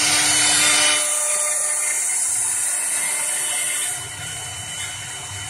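CNC wood lathe turning a wooden spindle while its router carving spindle cuts the wood: a steady, high-pitched machining whine and hiss. It is loudest in the first second, eases about a second in, and drops again about four seconds in.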